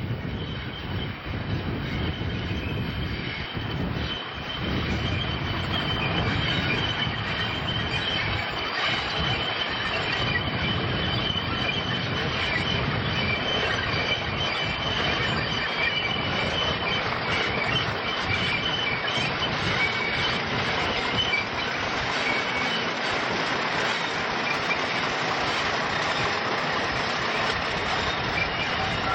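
Diesel-hauled train led by Class 50 locomotives working uphill: a steady, loud engine noise with high whining tones held over it.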